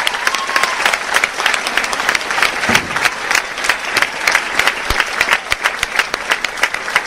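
Theatre audience applauding after a live song: dense, steady clapping from many hands, with one brief rising-and-falling call just after the start.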